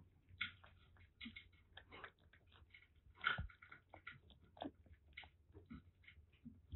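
Kitten eating wet cat food from a ceramic bowl: quiet, irregular wet chewing and lapping clicks, several a second, with one louder knock about three seconds in.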